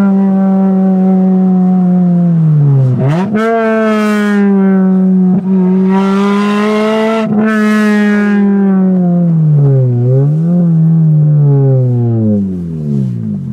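Toyota Corolla T-Sport's supercharged 1.8 four-cylinder revved through a straight-through exhaust with the centre and back boxes deleted. The revs are held high, drop and are blipped sharply back up twice with a hiss at the top, then fall away toward idle near the end.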